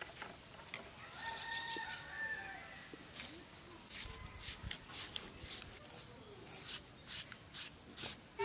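A rooster crowing once, a long call starting about a second in, followed by a run of sharp clicks and knocks.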